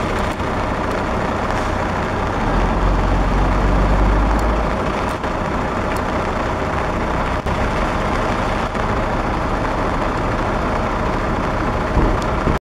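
Heavy truck diesel engines running, with a deep engine swell between about two and a half and five seconds in.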